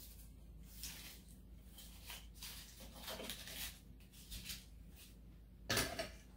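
Faint scratching and rustling as artificial greenery and faux lemons are handled and tucked into a tiered tray, with a louder short rustle near the end.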